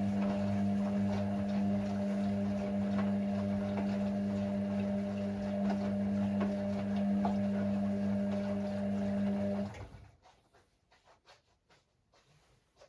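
Hoover Six AI130 washing machine running on Speed Wash with a steady electric hum and a rushing noise. The sound cuts off suddenly about ten seconds in, leaving only faint ticks.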